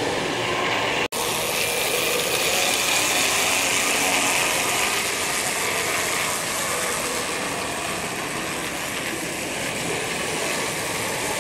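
S-scale model streetcar running along the layout's track, a steady mechanical whirring and clicking of its small motor and gears over a noisy room background. The sound cuts out for an instant about a second in.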